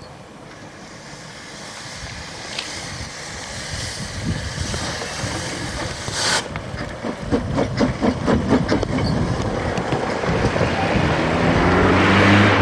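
Narrow-gauge steam locomotive hauling a coach, growing louder as it approaches and passes close by. It gives a short hiss about six seconds in, then rhythmic exhaust beats of about four a second, and a low rising drone near the end as it goes by.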